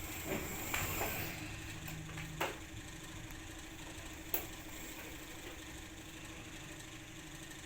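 A steady low hum under a few light clicks and knocks of plastic toy cars being handled.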